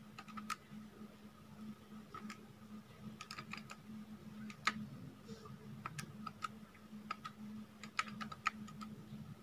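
Casio scientific calculator keys being pressed one after another, a run of soft irregular clicks as a long bracketed expression is typed in, over a steady low hum.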